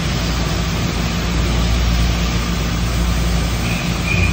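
Brother TC-324N CNC vertical machining center running, a steady mechanical hum, while its spindle head travels down toward the workpiece. A short high whine comes in near the end.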